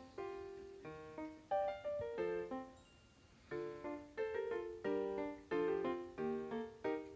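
Background music: a light piano-like keyboard melody of struck, fading notes over simple chords, with a short pause about three seconds in.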